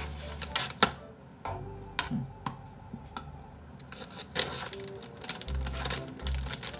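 Tin of ground pepper being shaken over a bowl of porridge: a quick run of light rattling clicks from about four seconds in, after a few single sharp clicks earlier. Soft background music plays underneath.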